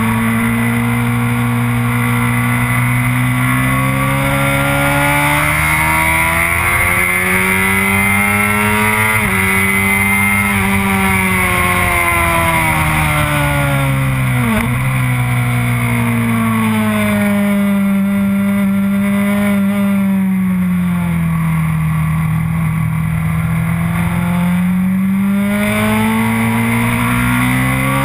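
BMW R1200S boxer-twin engine running hard on track, its pitch rising and falling as it accelerates and eases through corners, with a sharp drop and recovery about halfway through. Steady wind rush runs underneath.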